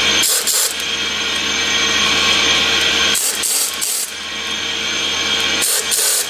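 Pneumatic air ratchet running as it turns the nut on a threaded jacking stud, pushing a compressor's shaft seal housing off. It runs in long spells, broken by short stops with a brief hiss of air: just after the start, about three seconds in and near the end.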